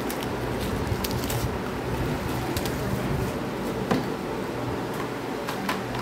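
Brown paper mailer crinkling as a cable is pulled out of it and handled, with a few light clicks and one sharper tap about four seconds in, over a steady background hum.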